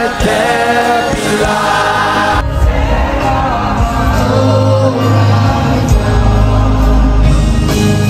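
Gospel worship music with singing. About two seconds in it cuts abruptly to a live choir and band with heavy bass.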